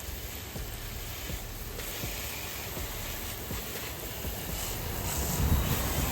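Water spraying from a garden hose onto a Sur-Ron electric dirt bike: a steady hiss of spray that grows louder near the end.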